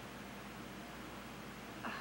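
Quiet room tone: a low, steady hiss, with a short faint sound near the end.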